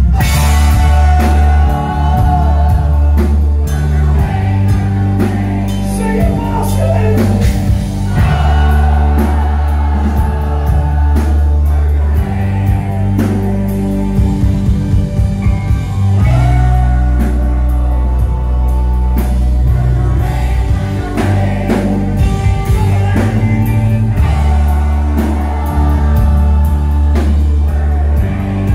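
A live rock band playing with sung vocals over heavy held bass notes and drums, the bass changing notes every few seconds.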